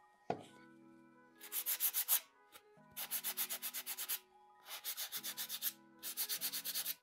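Fine sandpaper rubbed quickly back and forth over the dried stencilled chalk paint on a wooden box, in four short bouts of rapid strokes, about nine a second. A light knock sounds just after the start.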